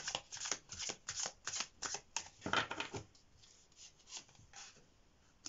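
A deck of tarot cards being shuffled by hand: a quick run of crisp card snaps for about three seconds, then a few soft card sounds as cards are drawn.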